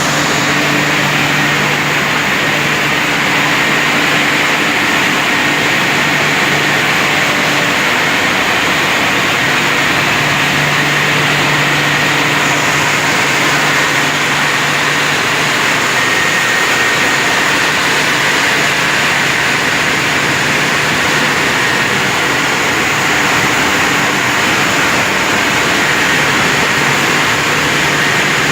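Automatic heavy-vehicle wash machine running: a loud, steady rush of spraying water and machinery with a low hum underneath, unbroken throughout.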